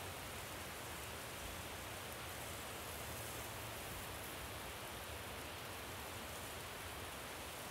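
Meat skewers sizzling steadily over a charcoal grill.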